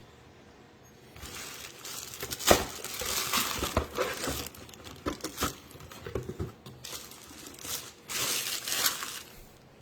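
Packaging being handled during an unboxing: crinkling and rustling wrapping with a few sharp knocks. It starts about a second in and comes in two busier stretches, the second near the end.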